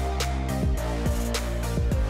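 Background music with sustained notes and a steady drum beat.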